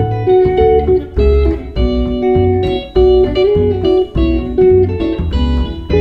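Instrumental music: a picked guitar melody of short single notes over a plucked upright double bass.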